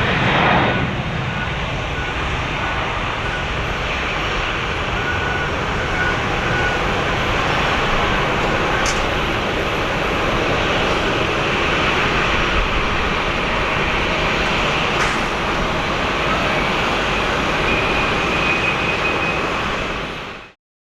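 Steady jet engine noise from an Airbus A340-600's four Rolls-Royce Trent 500 engines, holding level with no clear rise or fall, then cutting off suddenly near the end.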